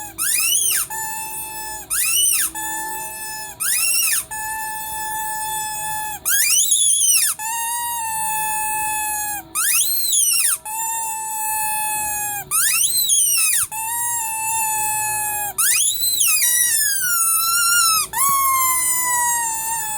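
Rubber teddy-bear squeaky toy squeezed over and over, about every two seconds. Each squeeze gives a quick rising-and-falling squeak, then a held whistling tone. The last few tones slide downward in pitch.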